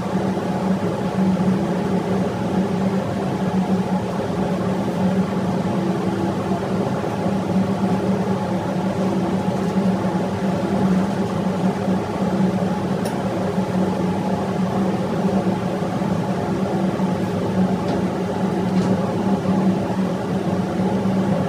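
Steady drone of running diesel generator machinery in an engine room: a strong low hum with several steady tones above it, and a few faint clicks near the end.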